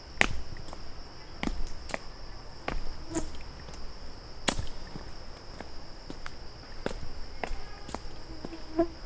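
A steady high-pitched insect drone, with a hiker's footsteps on the trail sounding as sharp steps about once a second.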